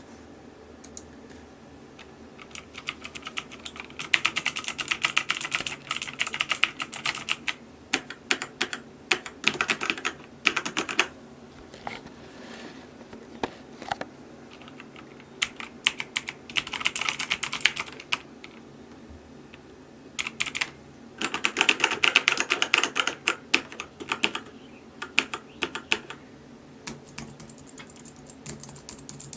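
Typing on a mechanical keyboard: fast runs of key clicks lasting a few seconds each, broken by stretches of sparser single keystrokes.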